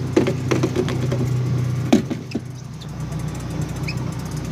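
Boat engine idling with a steady low hum, with several knocks and clatters of gear against the boat in the first two seconds, the loudest about two seconds in.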